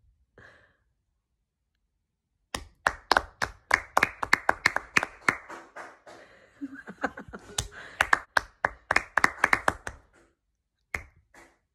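A quick run of hand claps and taps, about four a second, starting a couple of seconds in, easing briefly midway and stopping shortly before the end.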